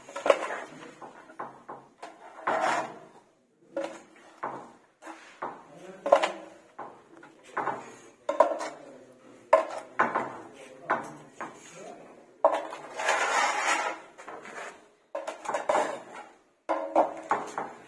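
Putty blade scraping across a wall in repeated strokes, about one a second, with one longer stroke near the middle, as it levels a freshly sprayed first coat of wall putty.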